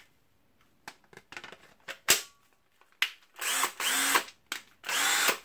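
DeWALT DCD731C2 14.4 V cordless drill's motor run briefly twice, each time spinning up and winding back down. Before that come a few plastic clicks and a sharp snap about two seconds in as the battery pack is handled.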